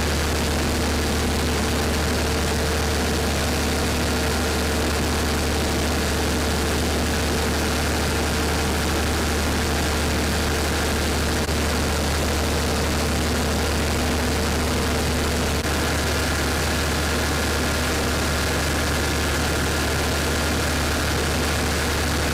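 Diesel generator set in a railway power car running steadily: a constant low hum with a few steady tones above it. A higher steady whine joins about two-thirds of the way through.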